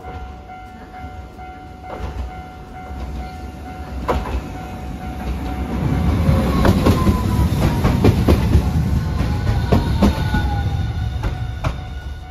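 Hiroden Green Mover APEX (5200-series) low-floor tram passing over a level crossing: its rumble builds to its loudest about six seconds in, with several sharp knocks as the wheels cross the rail joints and a whine that falls in pitch as it goes by, then fades.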